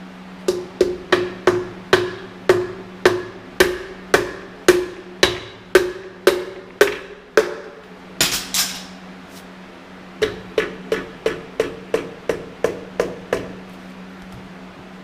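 Hammer taps driving a piston through a ring compressor into the cylinder bore of a Continental F162 engine block: a run of about a dozen even taps, about two a second, a short scraping rasp in the middle, then a second, quicker run of taps.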